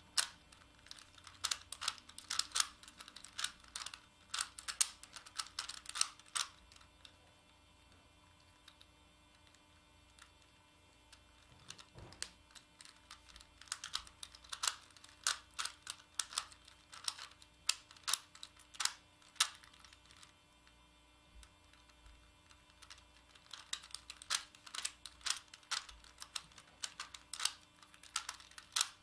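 Dense plastic clicks and clacks of a Megaminx's faces being turned in quick runs, broken by two pauses of a few seconds each.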